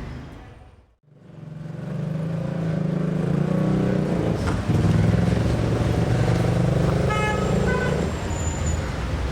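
A motor vehicle's engine running close by, fading in about a second in, with a short horn toot about seven seconds in.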